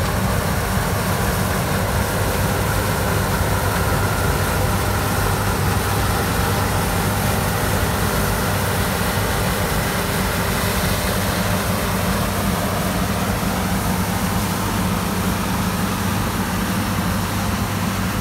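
Combine harvester running steadily while cutting wheat, a constant low engine hum under the machinery noise.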